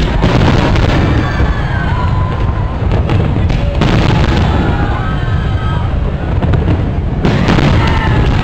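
Aerial fireworks in a dense barrage: continuous booms and crackling, with fresh volleys breaking about four seconds in and again near the end.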